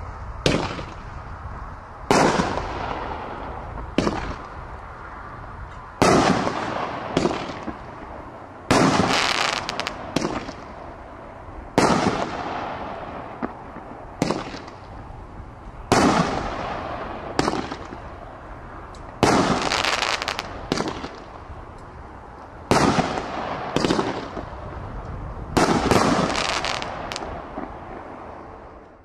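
Whiskey Tango 500-gram fireworks cake firing: about two dozen sharp bangs, roughly every two seconds and in places in quick clusters of two to four, each trailing off in a long fading rumble and crackle.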